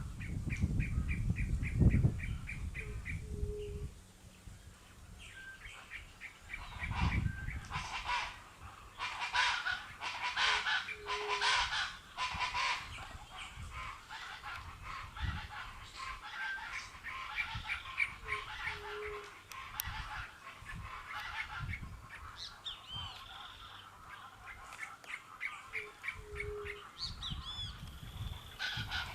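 Animal calls: repeated rapid chattering call series and honk-like cries, with a rumble of low noise during the first few seconds.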